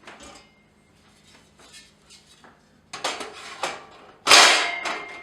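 Metal parts of an electric indoor grill being handled and set into its base: light knocks and scrapes, a clatter of strokes about three seconds in, then a loud metallic clang near the end that rings on briefly.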